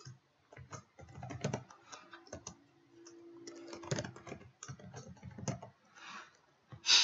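Computer keyboard typing in short, irregular runs of keystrokes.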